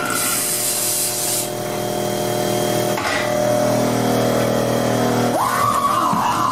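Halloween store animatronic props running: a hiss of air for the first second or so over a steady droning hum, then about five seconds in a loud wavering tone starts up.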